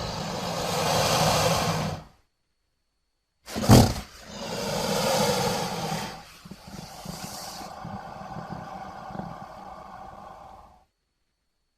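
Crocodilian growling in two separate calls. The first trails off about two seconds in. After a short silence, the second starts with a sudden loud burst and runs as a long, noisy growl that weakens and stops near the end.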